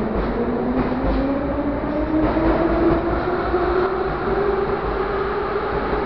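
Moscow Metro train pulling out of a station and accelerating past, its traction motors whining steadily up in pitch over the rumble of wheels on rail.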